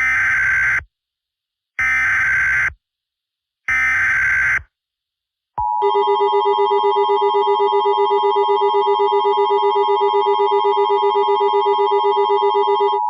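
Emergency Alert System header: three short bursts of screeching digital data, each about a second long, then a harsh two-tone attention signal held for about eight seconds with a fast warble. It marks the start of a new emergency alert broadcast.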